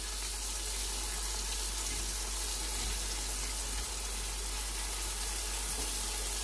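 Tomato and green-chili masala frying in oil in a pan, giving a steady, even sizzle.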